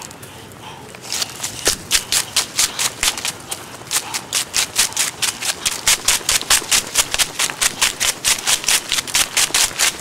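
Running footsteps crunching on a dry, leaf-strewn path: a quick, even rhythm of scuffs, about four or five a second, that starts about a second in after a short lull.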